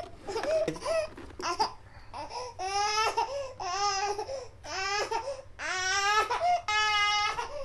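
Laughter for about the first two seconds, then a young baby crying in five long wails, each a little under a second.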